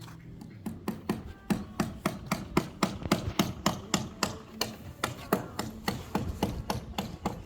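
Rapid hammering, about four sharp strikes a second.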